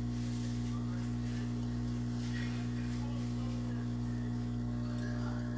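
Steady low hum with a hiss of air, as from a hot air rework station running, and a faint click near the end.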